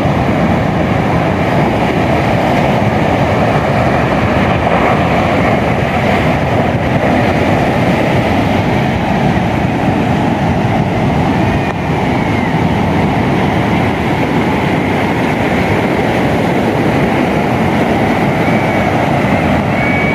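Ocean surf breaking on a sandy beach: a loud, steady rumble of waves.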